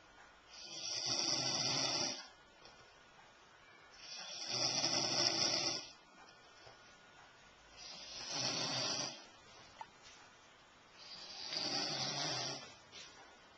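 Snoring: four long rasping snores, one about every three and a half seconds, each lasting under two seconds, with quiet breaths between them.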